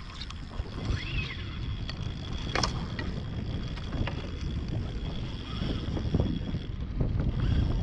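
Wind rumbling on the microphone over water lapping against a plastic kayak hull, with a few light knocks and splashes.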